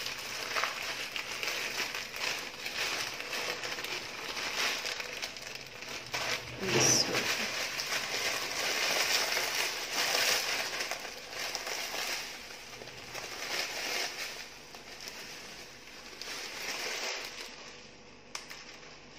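Plastic packet crinkling and rustling as crushed fine vermicelli is shaken and pulled out of it onto a tray, with the dry broken strands rustling as they fall. The rustling swells and fades irregularly and thins out near the end.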